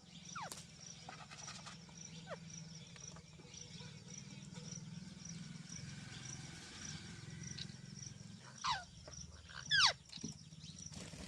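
Ringneck parakeet (rose-ringed parakeet) giving short screeching calls, each dropping sharply in pitch. A few are scattered through, and the loudest two come close together near the end.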